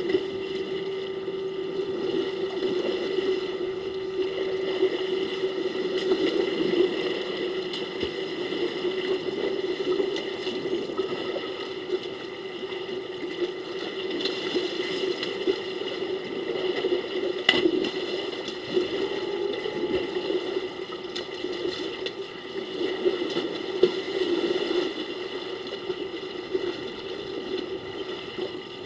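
Water sloshing and splashing as African elephants wallow and roll in a shallow waterhole, continuous and uneven, with a few sharper splashes.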